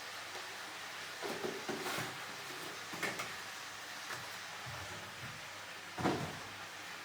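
Household handling noises: a few short knocks and clatters, like a cupboard or drawer being worked, the loudest about six seconds in, over a steady hiss.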